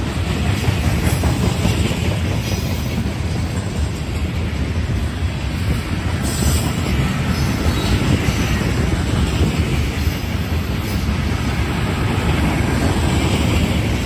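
Covered hopper cars of a grain train rolling steadily past at close range: the steel wheels run on the rails in a continuous loud rumble.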